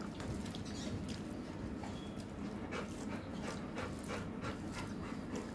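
A pet Labrador retriever panting in quick, even breaths, about three a second.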